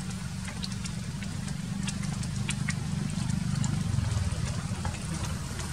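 Steady low engine rumble, with scattered faint clicks over it.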